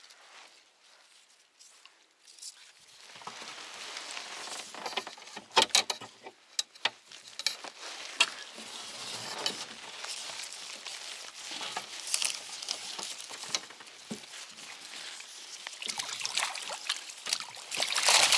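Water splashing and dripping, mixed with scattered sharp knocks and clicks. It starts after about three seconds of near silence and is loudest near the end.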